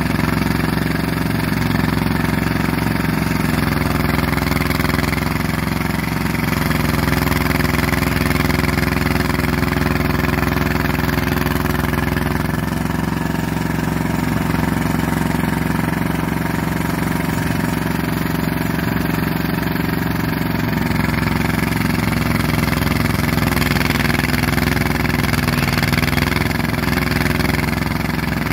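Diesel engine of heavy pipeline-construction machinery running steadily at a constant speed.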